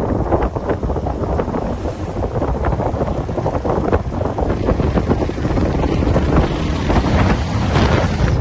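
Wind buffeting the microphone on a moving ride: a loud continuous rumble with irregular gusty crackles.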